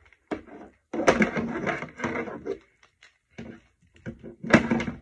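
A boy's voice making indistinct vocal sounds in several short bursts, with the loudest one near the end.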